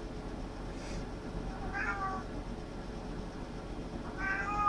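Domestic cat meowing twice, about two seconds apart: two short, high-pitched meows, each falling slightly at the end.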